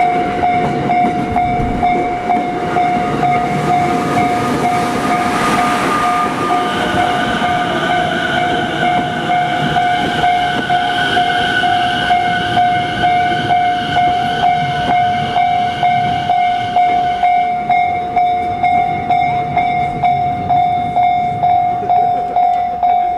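A Japanese railway level-crossing bell dings steadily, about twice a second, while a Narita Line train runs over the crossing. The train's rumble and whine stop about 17 seconds in, and the crossing bell keeps ringing on its own.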